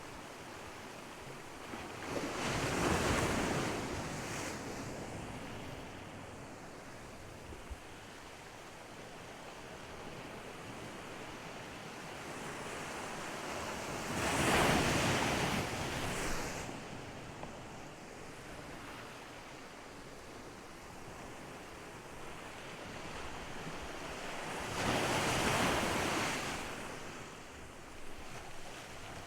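Ocean surf: three waves break on the shore about eleven seconds apart, each a swelling rush that fades back into a steady wash of water.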